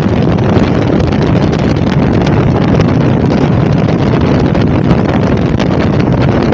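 Strong steady wind buffeting the microphone at riding speed, with a KTM 1290 Super Adventure's V-twin engine running at a steady cruise underneath.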